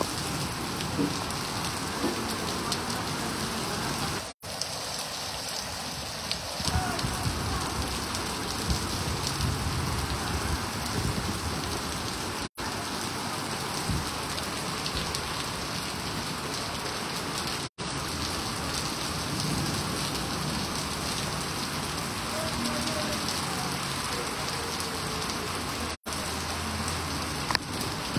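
Heavy rain pouring onto a flooded paved street, a steady hiss of falling and splashing water, broken four times by a brief dropout.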